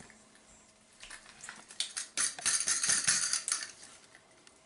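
Dry spice rub being shaken out of a glass clip-top jar, a quick rattling shake that starts about a second in and lasts about two and a half seconds.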